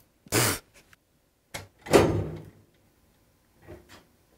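Snap-on toolbox's key lock and drawers being worked: a short rasp about a third of a second in, then a click and a loud metal clunk that rings briefly, about two seconds in. The lock is working properly and sounds good.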